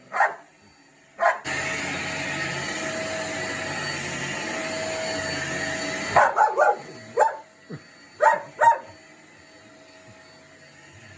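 Dutch Shepherd barking; about a second and a half in, a Shark Navigator vacuum cleaner switches on and runs steadily for about five seconds, then cuts off suddenly. The dog answers with a quick run of barks and then a few single barks.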